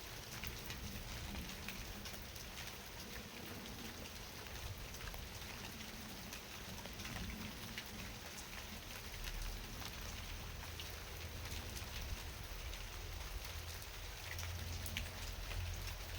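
Steady rain falling, with many small drop ticks over an even hiss. A low rumble runs underneath and grows stronger in the second half.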